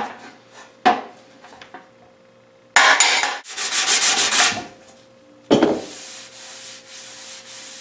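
A hand-held pad rubbed back and forth over a bare sheet-steel body panel, in a scratchy sanding sound: two strong strokes about three seconds in, then lighter steady rubbing from about halfway. Two light knocks in the first second.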